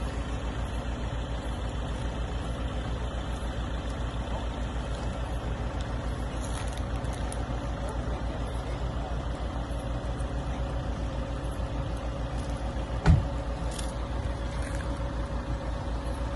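A vehicle engine idling steadily with an even, fast low pulse. A single short thump about thirteen seconds in.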